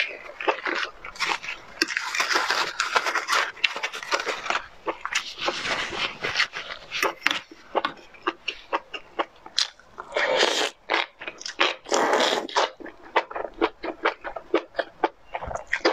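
Close-miked eating of enoki mushrooms in chili oil: wet chewing and mouth clicks, with longer slurps of the strands about ten and twelve seconds in.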